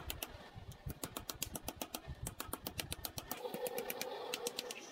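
Metal meat tenderizer pounding slices of raw meat on a wooden chopping block in fast strikes, about five or six a second, which thin out to a few scattered strikes after about three seconds.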